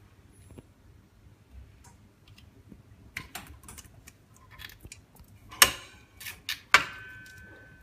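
Small clicks and taps of parts and tools being handled on a workbench, then two sharp knocks near the end, the second ringing briefly like a hard object set down on a hard surface.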